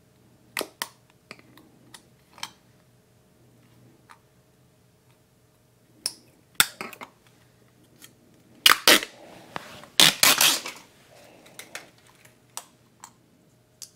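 Red backing liner being peeled off the 3M adhesive tape on a chrome floorboard cover: scattered clicks and handling taps, then two louder noisy rips about nine and ten seconds in.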